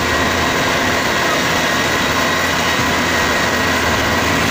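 Maxxi Bimo 102 rice combine harvester running loud and steady as it crawls on its tracks out of a paddy field, with a low engine hum and a thin, steady high whine over it.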